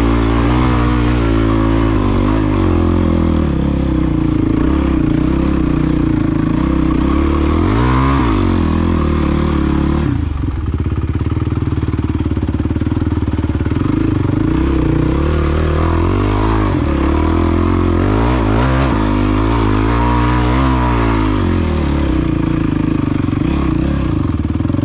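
Honda CRF450X's single-cylinder four-stroke engine running under a rider's throttle on rocky ground, its pitch rising and falling again and again as it revs and backs off.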